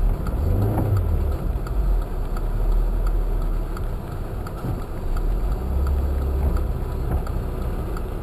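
Car engine idling, heard from inside the cabin as a steady low rumble, with a brief rise in the engine note about a second in.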